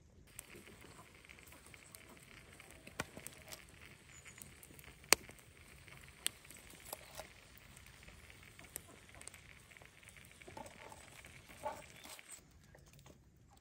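Whole fish and peppers sizzling on a wire grill over charcoal, a steady faint hiss with scattered sharp clicks, while wooden tongs tap against the grill and a wooden board as the grilled fish are lifted off; one click about five seconds in is much louder than the rest.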